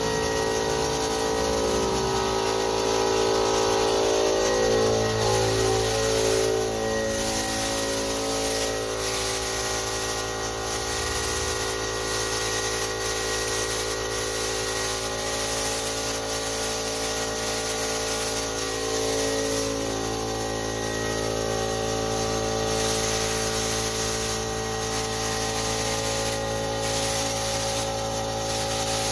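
Small portable piston air compressor running steadily, a droning motor with many overtones, under the hiss of a cup-type paint spray gun spraying paint.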